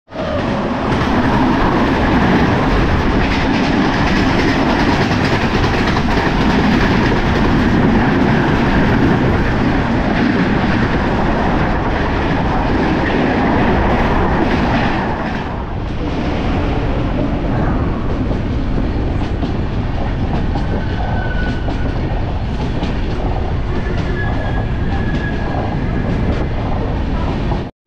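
Passenger express train running on the rails: a steady rumble with the clickety-clack of the wheels over the rail joints. A little over halfway through the noise dips briefly, then carries on slightly quieter.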